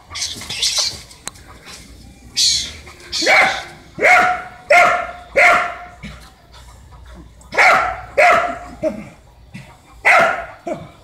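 Dog barking repeatedly at a cornered mongoose, in two runs of loud barks with a short pause between. Two short hissing, rasping sounds come before the barking starts.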